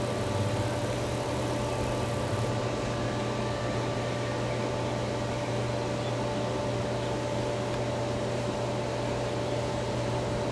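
A steady machine-like hum under an even hiss, holding a low drone and a couple of fixed higher tones, without any change in level.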